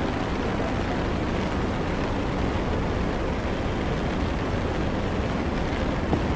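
Steady busy-street noise on a wet city road: passing traffic and rain blend into an even rumble and hiss, with one sharp click near the end.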